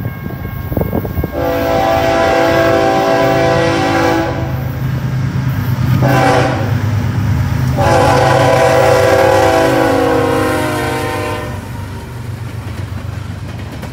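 Diesel freight locomotive sounding its chime air horn in several long blasts as it passes, over the steady low drone of its engine. Near the end the horn stops and the rumble and clatter of tank cars rolling by takes over.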